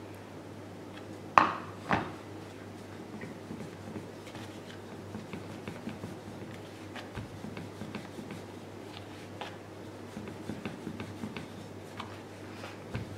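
Two sharp knocks about a second and a half and two seconds in, then a rolling pin working chapati dough on a stainless-steel board, with soft rubbing and light clicks against the metal.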